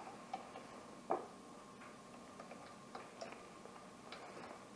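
Scattered light metallic clicks, irregularly spaced, as a wrench works the track-tension adjuster bolt on a Camso X4S snowmobile-style track; the sharpest click comes about a second in.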